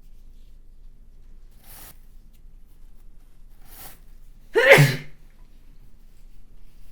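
A woman sneezes once, loudly, about two-thirds of the way in, the voiced end of the sneeze falling in pitch. Two faint breaths come before it, about two seconds apart.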